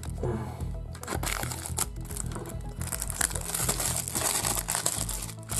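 Cellophane wrapping on a CD case crinkling and rustling as it is pulled off by hand, over background music.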